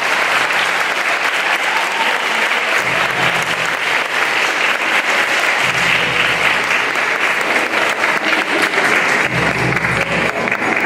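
An audience applauding steadily, with music playing quietly underneath.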